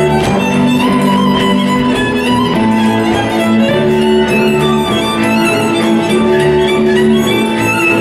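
Hungarian folk dance music with a lead fiddle over sustained string accompaniment, a moving bass line and a steady, regular beat.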